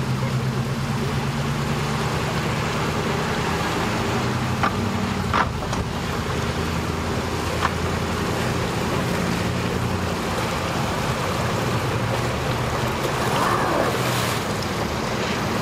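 Yamaha 150 outboard motor idling steadily while the boat is eased along at low speed, with a few faint clicks about five seconds in.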